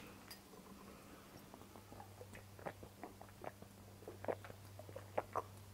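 Faint gulping and swallowing as someone drinks from a swing-top bottle, a string of soft irregular clicks over a low steady hum.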